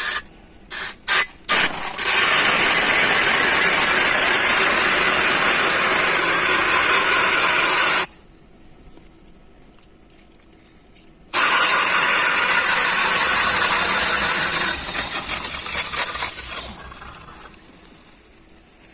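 Powered ice auger drilling through the ice, re-opening holes that froze over in the night: a few short blips, then two long runs with a high whine, the second trailing off as it breaks through.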